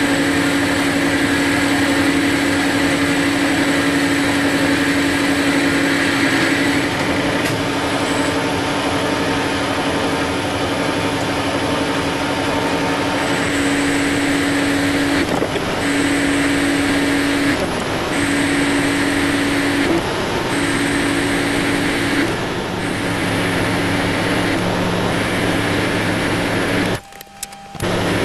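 Weiler Matador SV metal lathe taking a 1 mm cut on the mandrel stock: a steady motor and gear hum with a held tone, under the hiss of the cutting. About halfway in, the sound breaks into a run of two-second stretches with short gaps. It drops out briefly near the end.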